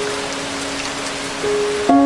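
Steady heavy rain falling, with slow instrumental music of long held notes laid over it; a new note comes in about one and a half seconds in.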